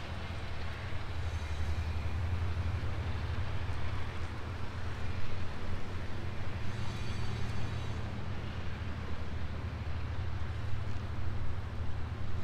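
Street traffic: a steady low engine rumble with cars passing on the road.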